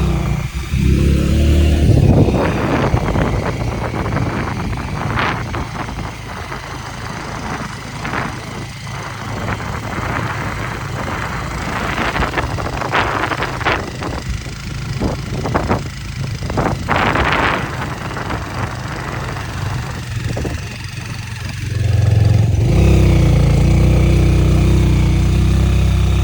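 Motorcycle on the move, its engine running with wind rushing and buffeting over the microphone; the engine note comes through loud and steady at the start and again for the last few seconds.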